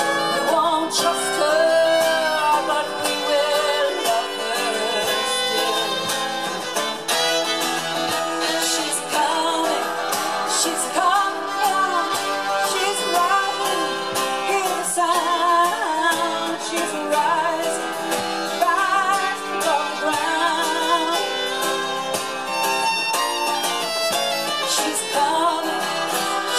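Live acoustic folk music: a fiddle and an acoustic guitar playing, with a woman singing.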